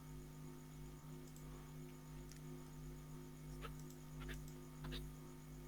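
Steady low electrical hum on the recording, with a few faint clicks in the second half.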